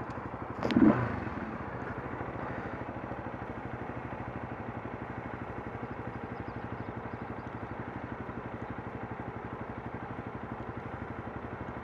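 Honda CBR125's single-cylinder four-stroke engine running steadily at an even pitch, with a short louder sound about a second in.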